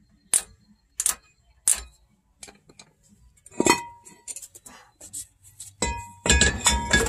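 Parking brake shoe adjuster being turned a notch at a time, giving sharp metallic clicks about every 0.7 s over the first two seconds. Scattered clinks follow, then a burst of metal rattling and scraping near the end.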